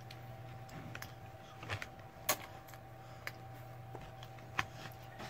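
A child eating quietly: a handful of short, sharp clicks and taps of a spoon and food against a cardboard meal box, over a steady low hum.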